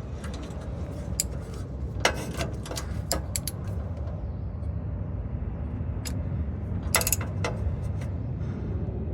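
Socket ratchet clicking in short runs on rusted 14 mm exhaust flange bolts, over a steady low rumble.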